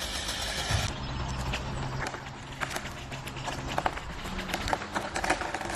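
An engine running steadily at a low idle, with many scattered sharp clicks and knocks from about two seconds in.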